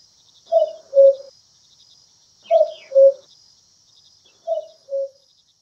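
A cuckoo calling "cuck-oo" three times, about two seconds apart, each call a higher note dropping to a lower one, over the steady chirping of crickets.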